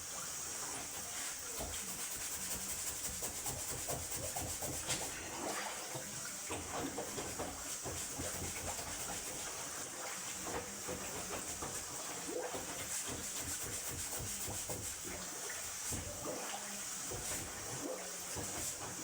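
Water running, with repeated scraping and knocking throughout, as from work clearing a clogged drain.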